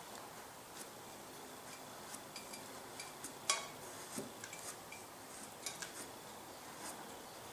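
Faint scattered clicks and light scraping of a knife cutting the tip of a freshly thrown porcelain teapot spout, with one sharper click about three and a half seconds in.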